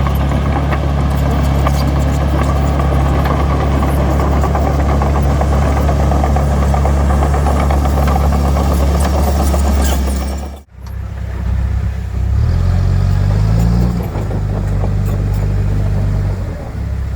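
Heavy-equipment diesel engine running steadily under load. The sound cuts off abruptly about ten seconds in, then the engine is heard again with its pitch rising and falling as it is revved, twice.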